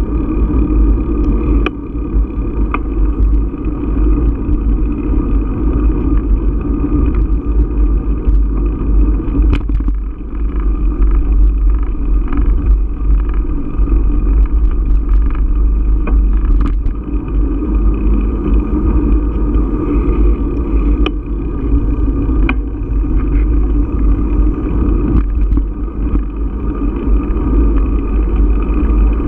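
Steady wind buffeting and tyre rumble on a bicycle-mounted GoPro camera riding a paved trail, with scattered sharp clicks and knocks from bumps in the surface.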